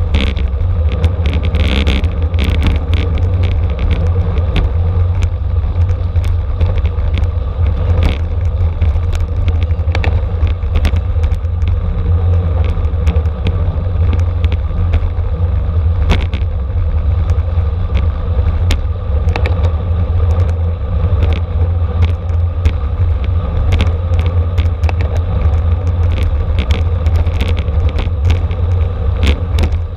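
Continuous wind rush and road rumble on a camera carried on a racing bicycle at race speed, with scattered clicks and rattles from the bike.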